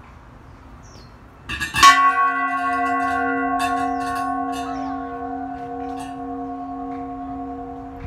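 A hanging brass bell struck once, about a second and a half in, then ringing on with a low tone and several higher tones that slowly fade, one of them wavering.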